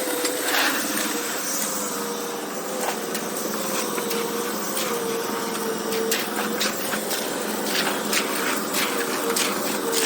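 Construction work on a concrete slab: a machine runs with a steady drone that wavers slightly in pitch, under scattered sharp knocks and clinks of tools and materials.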